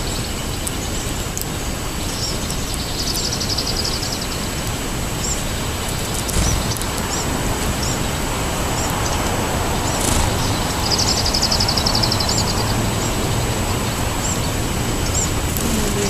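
Small songbirds chirping in short high notes every second or so, with two fast trills lasting a second or two, one about three seconds in and one about eleven seconds in, over a steady background rush.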